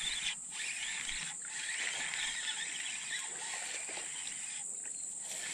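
Penn Battle II 1000 spinning reel being cranked to reel in a hooked fish, a steady whirring that pauses briefly a few times, over a constant high buzz of insects.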